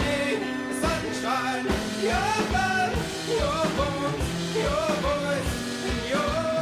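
Background song with a sung melody over a steady drum beat.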